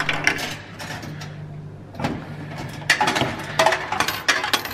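Vending machine coin mechanism: a few clicks at the slot over the machine's steady low hum, then from about two seconds in a quick run of metallic clicks and clinks as coins drop through into the return cup.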